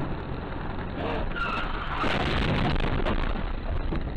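Car swerving off the road: a brief tyre squeal about a second in, then about a second and a half of loud, rough rushing noise with scattered sharp knocks as it runs onto the verge.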